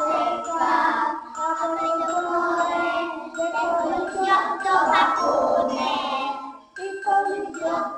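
Children's music with bell-like tinkling tones over a melody, breaking off briefly near the end before resuming.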